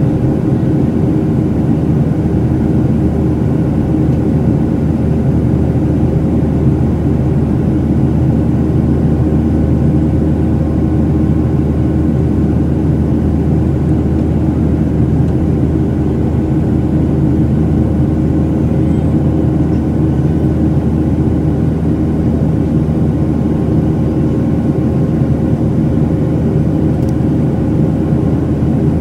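Steady cabin noise inside a Southwest Boeing 737 in the climb after takeoff: the jet engines' low drone and the rush of air over the fuselage, with a few faint steady tones on top.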